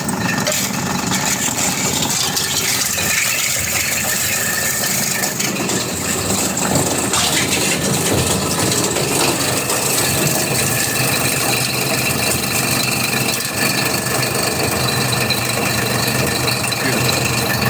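Industrial plastics granulator running steadily: its motor hums and its three-blade cutting rotor turns with a constant rattle.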